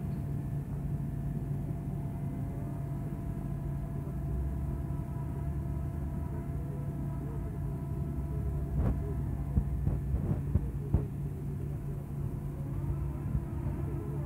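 A Caterpillar MH3022 material handler and a waste shredder running together give a steady diesel drone with a faint whine above it. A few sharp knocks come between about nine and eleven seconds in, as grappled waste is dropped and handled.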